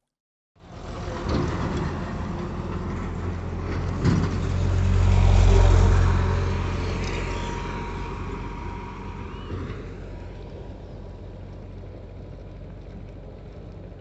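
Road traffic: a heavy vehicle passing close by, its low rumble swelling to a peak about five seconds in and then slowly fading.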